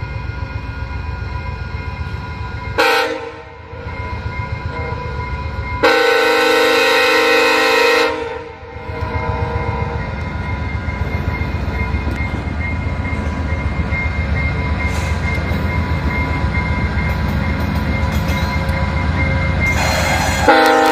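Passenger locomotive air horn blowing for a grade crossing: a short blast about three seconds in, a longer blast of about two and a half seconds at six seconds, and another starting near the end, over the train's steady low rumble.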